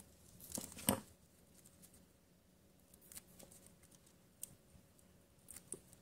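Small crackles and clicks of clear plastic and double-sided tape being handled and pressed into place, the loudest crackle about a second in, then a few faint scattered ticks.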